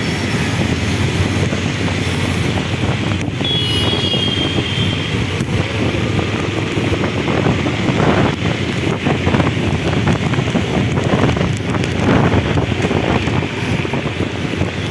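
Steady road noise from a vehicle driving on a rain-soaked road, tyres on wet tarmac mixed with wind buffeting the microphone. A short high tone sounds about four seconds in.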